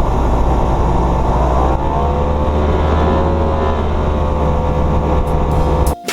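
Boat's outboard motor running at speed: a steady low drone under rushing noise, with a faint whine that bends slightly in pitch. It cuts off suddenly near the end.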